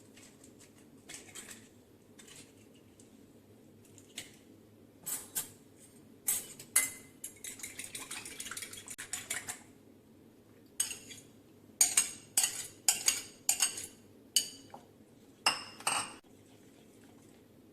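A utensil clinking and scraping against a bowl as an egg is mixed into ground red-lentil batter. In the middle there is a run of rapid clinks of stirring; later come a series of louder, separate knocks against the bowl.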